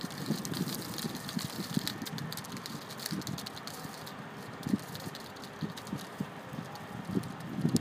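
Wind buffeting the microphone in uneven low bumps over a steady outdoor hiss, with faint fine crackles in the highs.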